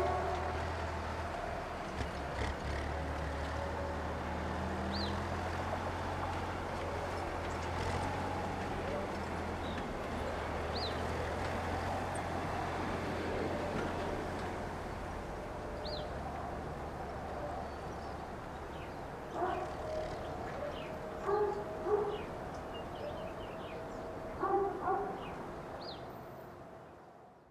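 Outdoor ambience: a steady low rumble with faint, short high chirps now and then. A dog barks several times in the last third, and then the sound fades out.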